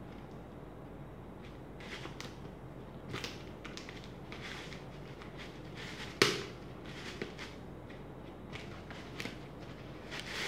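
Scissors cutting into a plastic courier mailer: scattered short crinkles and snips of the plastic, with one sharp click about six seconds in as the loudest sound.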